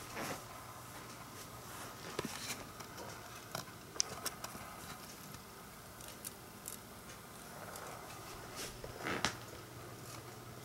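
Quiet room with a steady low hum, a few faint sharp clicks and taps, and two brief rustling noises, one at the start and one about nine seconds in.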